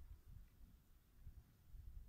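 Near silence, with a faint, uneven low rumble of wind on the microphone.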